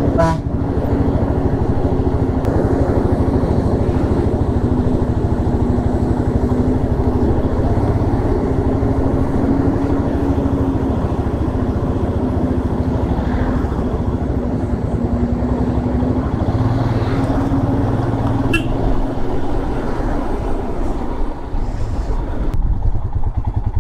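Motorcycle engine running at a steady, even pace while riding uphill, over a steady rumble of road and wind noise.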